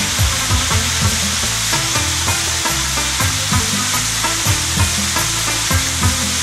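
Background music with a steady drum beat and a bass line, under a heavy, even hiss.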